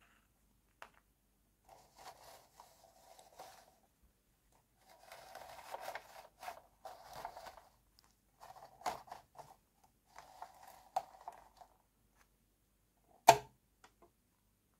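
Hard plastic toy dollhouse being turned and slid over a fabric mat, heard as intermittent scraping and small clicks. Near the end its front wall comes unlatched with one sharp, loud plastic snap.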